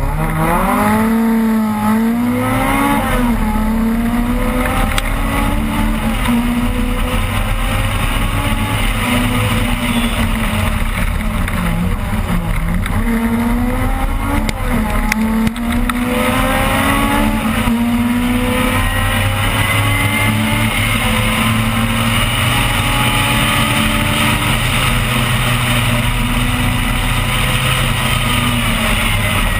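Opel Kadett rally car's engine heard from inside the cabin at full effort, its pitch climbing and falling again and again through gear changes and lifts. There is a brief dip about halfway through, and the engine is held high for most of the second half.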